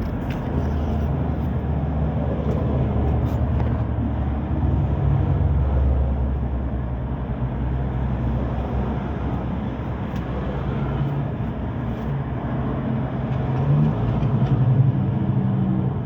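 A vehicle engine running, a low steady drone whose pitch shifts a few times.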